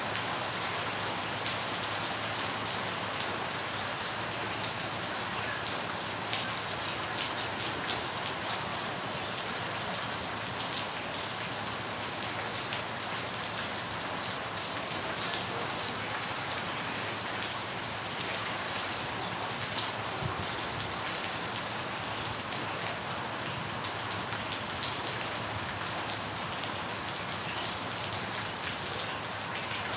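Steady rain falling on standing floodwater, a continuous hiss of many small drops splashing on the water's surface.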